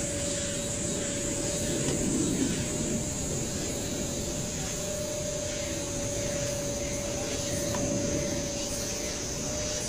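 Steady background noise with a constant thin hum running under it, with no distinct events.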